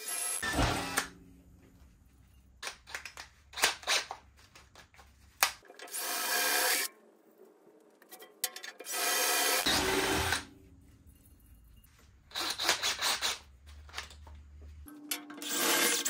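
Cordless DeWalt drill running in short bursts of about a second, five or so times, drilling positioning holes through the aluminium body of a header tank. Short clicks and knocks come between the bursts.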